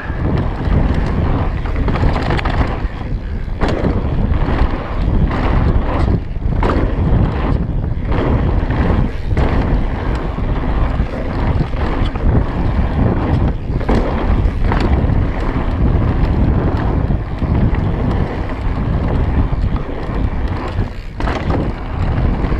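Wind rushing over the microphone of a mountain biker's action camera while riding a dirt trail, with the rumble of knobbly tyres on dirt and frequent short rattles and knocks from the bike over bumps.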